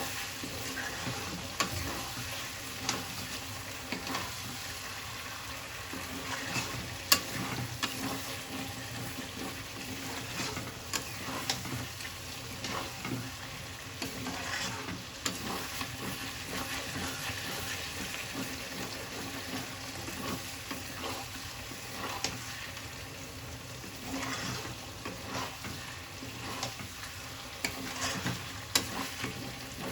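Chicken frying and sizzling in a pan while it is stirred, with a spatula scraping and knocking against the pan at irregular moments; the sharpest knocks come about seven seconds in and near the end.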